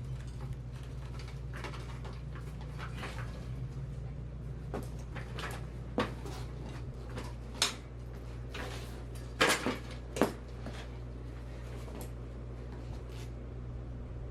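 Mallet striking a bicycle's crank to knock it out of the bottom bracket: a handful of sharp, irregularly spaced knocks with a quick pair near the middle, over a steady low hum.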